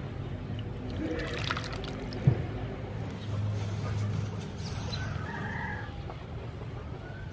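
Chickens clucking faintly in short calls against a steady low background rumble, with a single sharp knock about two seconds in.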